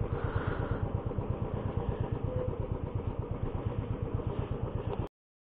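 Royal Enfield single-cylinder motorcycle engine running at low revs as the bike rolls slowly along, an even, rapid thumping beat. The sound cuts off suddenly near the end.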